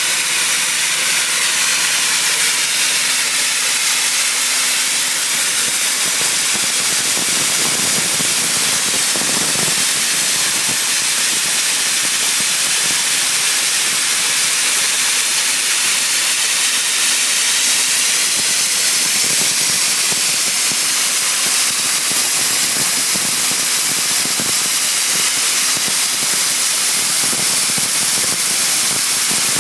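Dry ice blasting nozzle blasting a boat hull below the waterline: a loud, steady hiss of compressed air and dry ice pellets that runs without a break.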